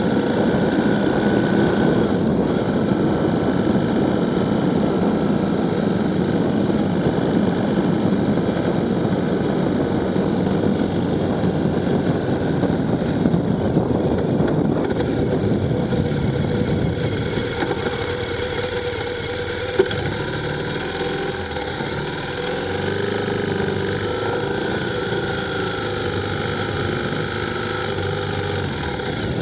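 Motor vehicle on the move: steady wind and road rush with an engine running underneath. After about sixteen seconds the rush eases as it slows, and the engine's low hum comes through more clearly.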